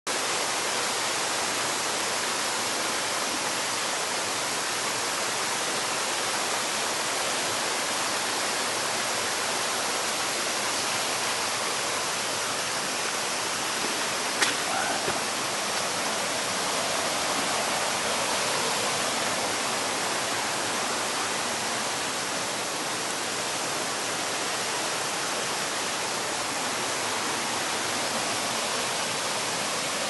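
Mountain valley stream rushing over rocks and small cascades: a steady, even hiss of flowing water. A single sharp click sounds about halfway through.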